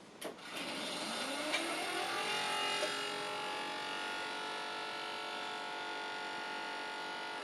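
A newly built desktop PC powering up: a brief click, then its cooling fans spin up in a rising whine over about two seconds and settle into a steady whirr, starting to slow at the very end.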